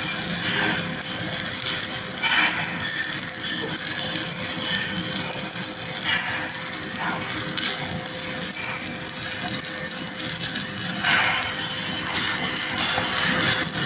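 Stick-welding (SMAW) arc crackling steadily as the electrode burns, with a few brief louder flares.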